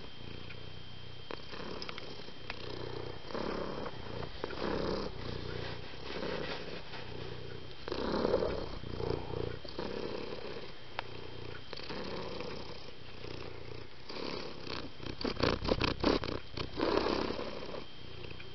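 Domestic cat purring, a low rumble that swells and fades about once a second with each breath. A quick run of sharp clicks and crackles comes about fifteen seconds in.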